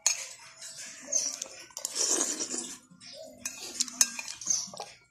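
Metal spoon clinking and scraping against a ceramic plate, with a few sharp clinks.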